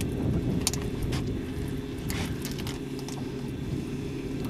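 Boat engine running steadily at a low trolling idle, a constant low hum. A few light clicks and rattles sound over it, about a second in and again around the middle, as hooks and lures are worked free of the fish.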